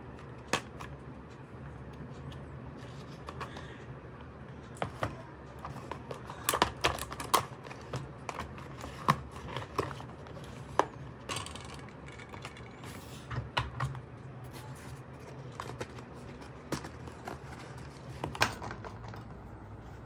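Unpacking a toy remote-control car: cardboard and plastic packaging rustling and crinkling, with scattered sharp clicks and knocks of hard plastic toy cars and remotes being handled and set down.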